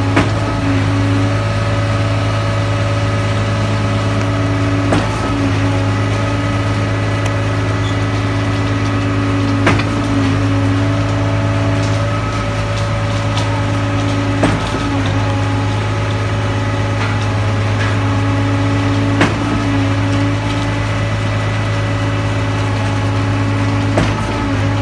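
A heavy engine idling steadily with an even low hum, with a short sharp click repeating about every five seconds.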